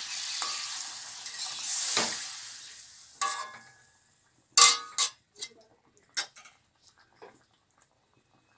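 Water poured into hot oil in a kadai of cauliflower sizzles and then dies away over about three and a half seconds as the water takes up the heat. Then come several sharp metal clinks against the pan, the loudest about four and a half seconds in.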